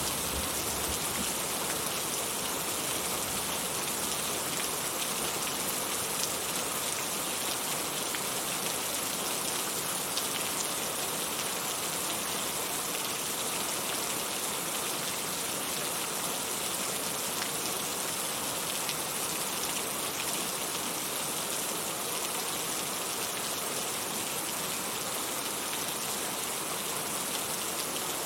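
Heavy rain falling steadily: a constant, even hiss of drops on the ground and surfaces.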